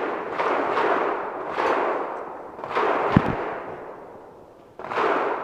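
Pistol shots, about four, spaced a little over a second apart, each followed by a long echoing tail, with a short dull thud just after the third.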